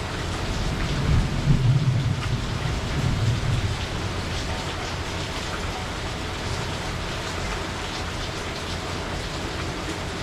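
Heavy rain falling steadily, with a low rumble swelling and fading away between about one and four seconds in.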